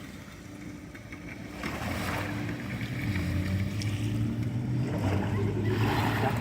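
A low, steady engine drone that grows louder about two seconds in and holds its pitch.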